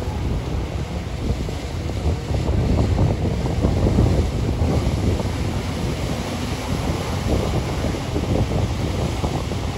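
Wind buffeting the microphone over surf, with a jet ski's engine running out on the water.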